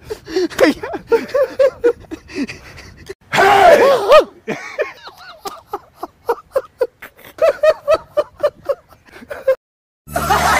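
A man's wordless vocal reactions to the taste of balut: a string of short groans, gasps and stifled laughs, with a louder outburst about three to four seconds in, cut off abruptly near the end.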